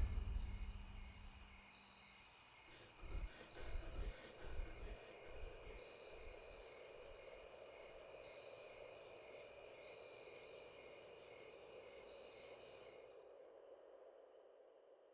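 Crickets or other night insects chirping in a steady, high, pulsing chorus, with a few soft low thuds about three to five seconds in. The chorus cuts off about two seconds before the end.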